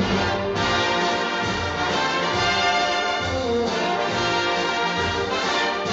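Orchestral music with brass to the fore, trombones and trumpets playing sustained chords.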